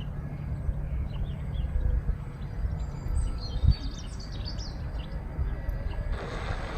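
Small birds chirping and tweeting over a steady low outdoor rumble, with a single thump in the middle. Near the end a steady hiss sets in.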